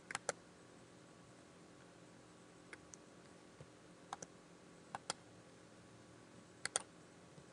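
Faint computer mouse clicks, coming in quick pairs about five times over several seconds.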